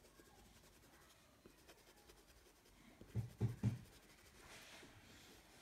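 Black oil pastel scratching and rubbing on sketchbook paper, faint, with three dull low thumps in quick succession a little after three seconds in.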